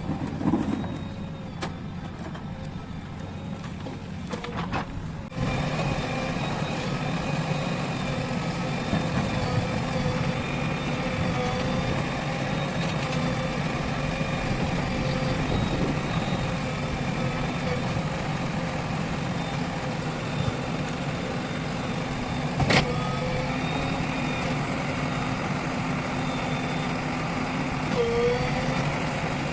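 Heavy diesel machine engine running steadily, growing louder about five seconds in, with a single sharp knock about three-quarters of the way through.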